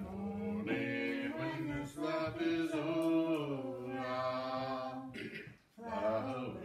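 Several voices singing a hymn without accompaniment, a woman's voice on a microphone leading, in long held notes with a short breath pause about five and a half seconds in.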